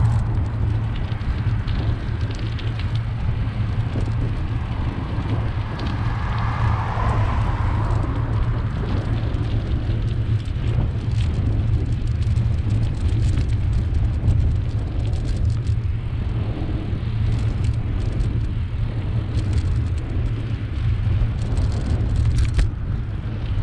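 Steady low wind rumble on a bike-mounted camera's microphone while cycling along a road, with small clicks and rattles from the ride. A passing vehicle swells and fades about six to eight seconds in.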